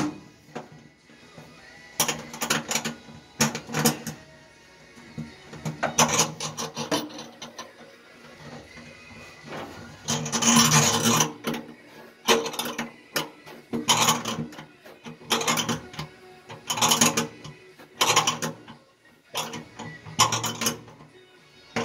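Wrench and nut on a bolt through a steel firewall. Short bursts of quick metallic clicks and scrapes come every second or two, with one longer scrape about halfway.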